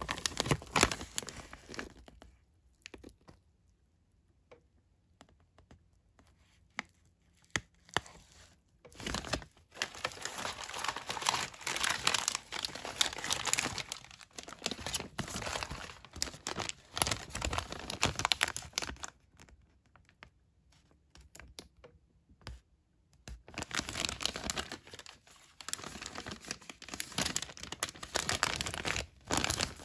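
Plastic MRE ration packaging crinkling and rustling as it is handled, in spells. It goes quiet for several seconds soon after the start, and again about two thirds of the way through.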